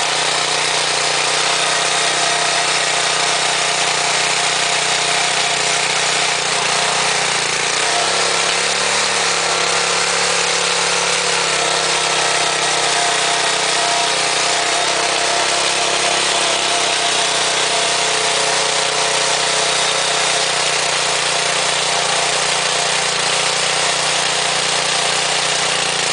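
Small single-cylinder air-cooled petrol engine of a walk-behind rotovator running steadily as its tines dig through soil. About seven seconds in, the engine note dips briefly and then picks up again.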